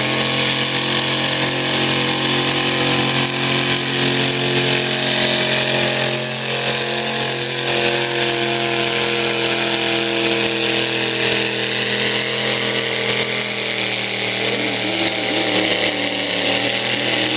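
A two-cylinder John Deere pulling tractor's engine running hard at high, steady revs while it drags a weight-transfer sled, with a brief dip about six seconds in.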